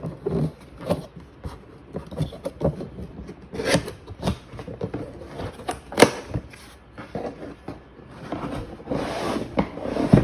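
Cardboard box being opened by hand: irregular scraping, rubbing and tapping of the cardboard flaps, with one sharp knock about six seconds in and a longer scrape near the end.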